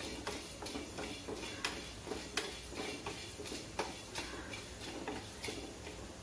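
Coriander seeds dry-roasting in a stainless steel pan, popping with irregular sharp clicks, about two or three a second, as a wooden spatula stirs them. The popping is the sign that the seeds are roasted and fragrant.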